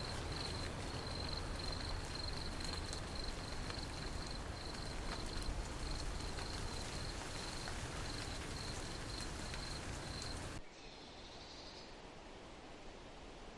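Insect chirping: a steady series of short, high-pitched chirps repeating a few times a second over a low rumble. About ten and a half seconds in it cuts off abruptly, leaving a quieter outdoor background with a couple of faint high chirps.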